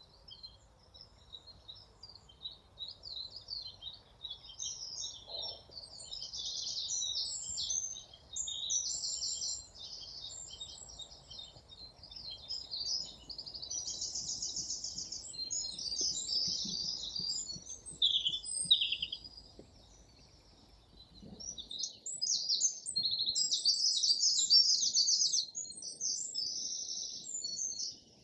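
Woodland songbirds singing, several at once, in overlapping phrases of chirps and rapid trills, with a brief lull about two-thirds of the way through.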